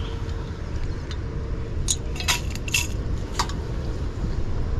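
A hand scooping soaked, swollen rice out of water in a steel saucepan: soft wet squishing, with a few light clinks against the metal pan and bowl about halfway through, over a steady low rumble.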